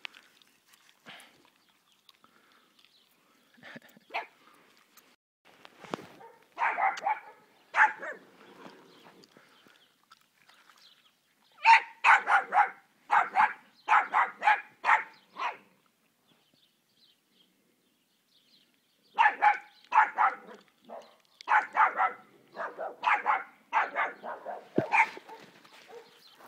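A dog barking in three bouts of short, repeated barks, about two a second, with quiet gaps between the bouts.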